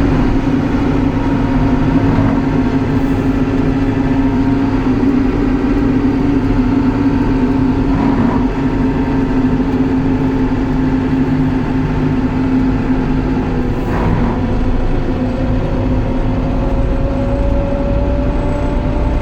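Backhoe loader's diesel engine running steadily with a constant hum. A few short knocks come through, about eight and fourteen seconds in, and in the last few seconds a second tone slowly rises in pitch.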